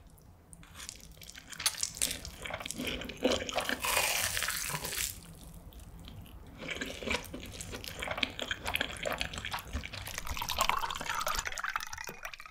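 Close-miked eating sounds: a long slurp of stir-fried instant noodles, then wet chewing and smacking with short crisp clicks as a breaded, fried cheese cutlet is bitten and chewed.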